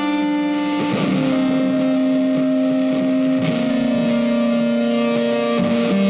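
Background music: an electric guitar with effects holding long sustained chords, the chord changing about every two and a half seconds.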